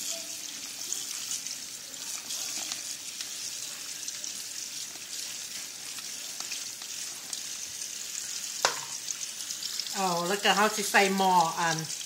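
Warm tap water running in a steady hissing stream onto boiled chicken feet in a plastic colander, with hands rubbing and turning them as they are rinsed. A sharp click comes about two-thirds of the way through, and a voice comes in near the end.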